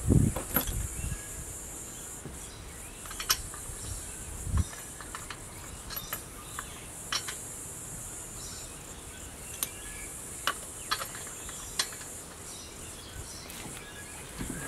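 Wheel lug nuts being fitted and tightened by hand, giving scattered sharp metallic clicks and one dull knock, over a steady high insect chorus.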